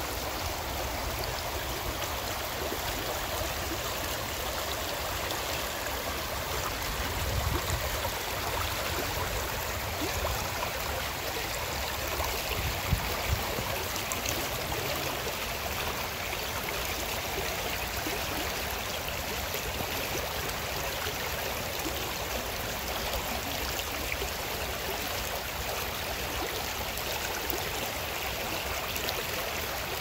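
Shallow rocky stream rippling and gurgling steadily over stones, with a couple of brief low thumps about halfway through.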